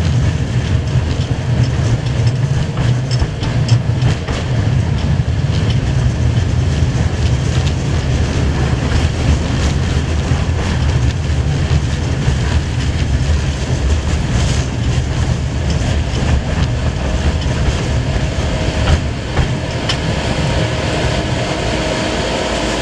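Tram in motion, heard from inside the car: a steady heavy rumble of wheels on rails with scattered clicks and rattles. A faint whine comes in near the end.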